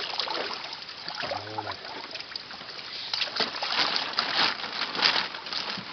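Water splashing and sloshing in irregular splashes as koi are handled in a tub of water.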